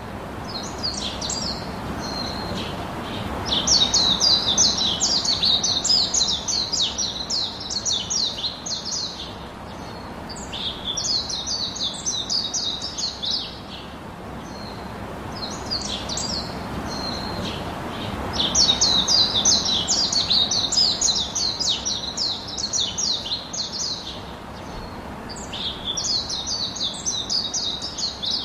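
Small birds chirping and singing in rapid, high-pitched runs of notes. The phrases last a few seconds each, come again and again with short pauses between them, and sit over a steady background hiss.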